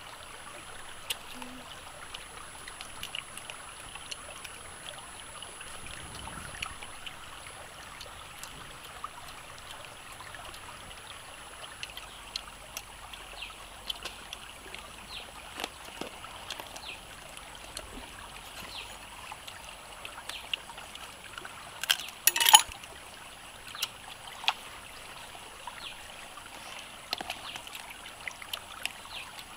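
Shallow stream trickling over rocks, with small clicks scattered throughout and a brief burst of loud crackling about three quarters of the way through.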